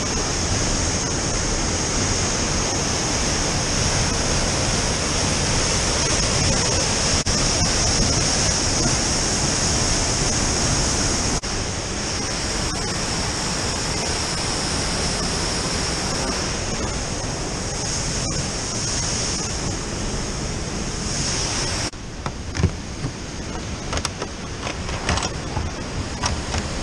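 Steady rushing of a waterfall and whitewater, a dense hiss with no pitch to it, changing abruptly twice as the shots cut. Near the end it is a little quieter and a few sharp knocks come through.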